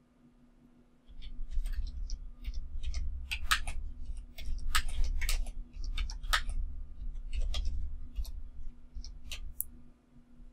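Computer keyboard being typed on: irregular keystroke clicks starting about a second in and running for about eight seconds, with a low rumble beneath them.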